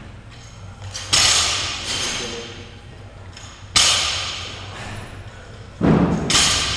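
Loaded barbells with bumper plates (20 kg bars, 10 kg plates) landing on a rubber gym floor. There are sharp thuds, each with a long ringing decay: one about a second in, one near four seconds, and two close together near the end.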